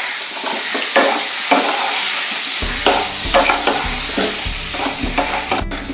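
Raw mango pieces sizzling steadily in hot oil in a nonstick kadai while a wooden spatula stirs and scrapes them. From about two and a half seconds in, the spatula knocks against the pan repeatedly.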